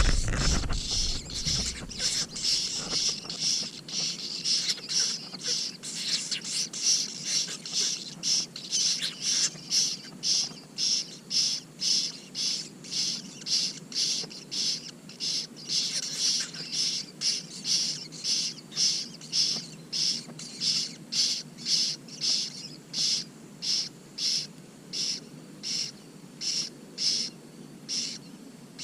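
Young common cuckoo begging with a high, thin call repeated steadily about one and a half times a second. A low rumble fades out in the first couple of seconds.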